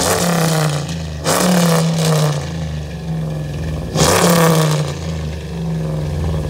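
Ram 1500's Hemi V8 exhaust revved three times from idle, each rev rising and then cut short by the engine's built-in rev limit, dropping back to idle in between.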